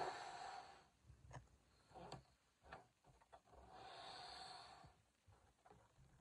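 A person exhaling into a latex balloon to inflate it, two breaths of about a second each: one at the start, one around four seconds in. A few faint clicks come between them.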